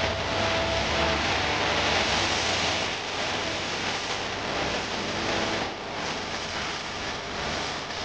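Steady rushing ambience of a busy exhibition hall full of visitors.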